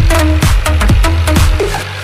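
Background electronic dance music with a steady beat and heavy bass; the bass drops out briefly near the end.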